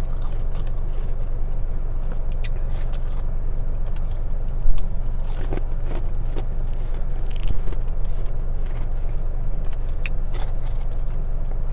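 Steady low hum of a car cabin, with scattered short crunches and clicks, the loudest about a third of the way in: freezer frost being bitten.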